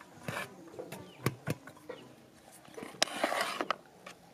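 A metal bowl knocks against an aluminium basin as cooked rice is scooped and tipped in. There are a couple of sharp clinks, then a short rush of rice sliding out of the bowl about three seconds in.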